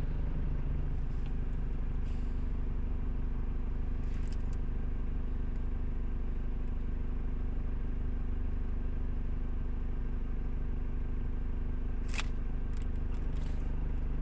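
Steady low hum running throughout, with a sharp click about twelve seconds in and a few fainter clicks around it.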